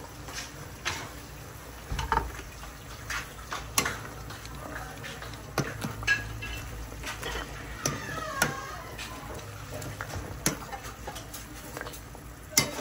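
Metal ladle clinking and knocking against the side of a large metal stockpot as the soup is stirred, in scattered strikes every second or so, over a faint steady low hum.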